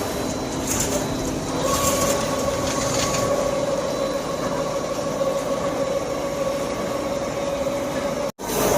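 Heavy-duty CNC lathe turning metal: steady machine noise, joined about two seconds in by a held whine. The sound drops out abruptly for an instant near the end.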